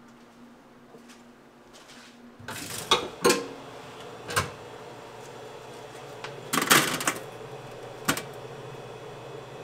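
Kitchen work noises: several sharp clatters and knocks of utensils or equipment being handled, over a steady machine hum that comes in about two and a half seconds in.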